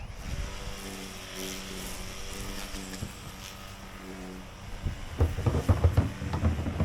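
An engine running with a steady hum, then loud gusts of wind buffeting the microphone from about five seconds in.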